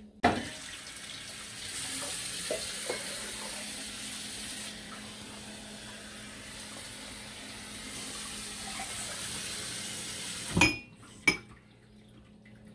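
Kitchen tap water running steadily for about ten seconds, starting with a knock and stopping abruptly; two sharp knocks of kitchenware follow near the end.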